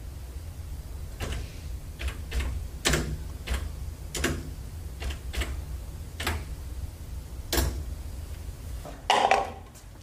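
Keys pressed one by one on the SCP-294 coffee vending machine's keyboard: about ten separate clicks at an uneven pace over a low hum. Near the end comes a short, louder clatter from the machine as a paper cup drops into its dispensing slot.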